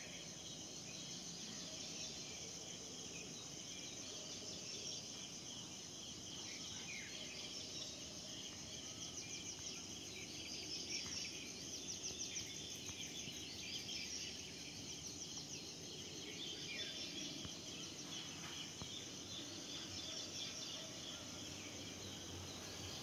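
Evening outdoor ambience: a steady high insect trill, pulsing fast at times, with scattered short bird chirps over a faint low background noise.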